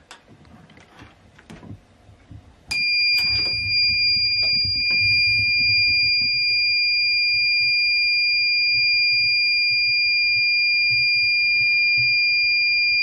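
Homemade door alarm's buzzer sounding one steady, high-pitched tone that switches on suddenly about three seconds in, after a few light clicks and knocks.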